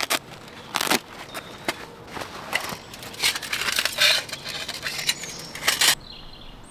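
Crunching, rustling handling noises as camping gear is pulled from a fabric pouch and handled over dry leaf litter, in a string of sharp, uneven crackles. These stop abruptly about six seconds in, leaving quiet woodland with short high bird calls.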